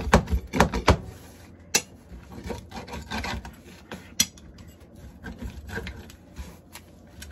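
Knife sawing through a crisp fried tortilla quesadilla on a plate: a series of short scraping strokes, loudest in the first second, then softer strokes with a couple of sharp clicks of the blade against the plate.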